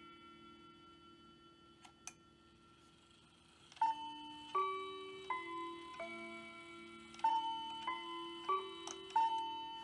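Hamilton bracket mantel clock's chime mechanism: a faint click about two seconds in, then the chimes strike a melody of eight ringing notes in two phrases of four, each note left to ring on.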